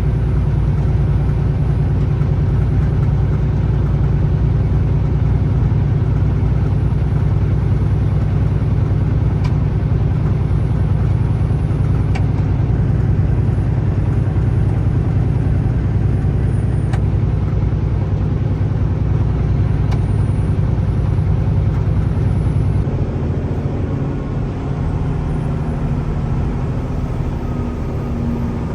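Semi truck's diesel engine and road noise heard from inside the cab while driving at highway speed: a loud, steady low rumble. Near the end the deep rumble eases and a higher hum comes up.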